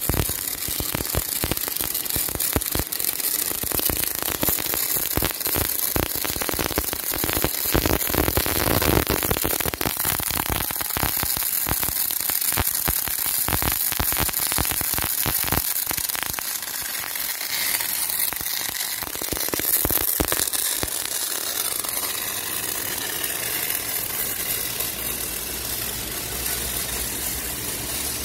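Electric welding arc crackling and sputtering as hard-facing beads are laid on the steel plates of a VCM EX220 excavator bucket. After about twenty seconds the crackle thins into a steadier hiss with a low steady hum underneath.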